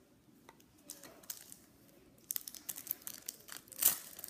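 Scissors snipping at a clear plastic toy package, with the plastic crinkling. A few scattered snips at first, then from about halfway a dense run of crackling and crinkling as the package is cut open, loudest near the end.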